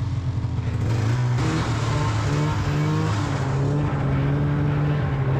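Two-stroke Polaris Indy 500 snowmobile engine running under way. Its pitch climbs about a second in, then holds, rising and falling a little.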